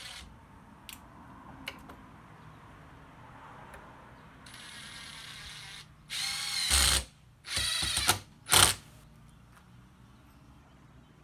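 Power driver with a long Robertson bit sinking a 2-inch wood screw through a chair seat slat, in three bursts about six, seven and a half and eight and a half seconds in: a longer run of about a second, then a second run and a short final blip as the screw seats.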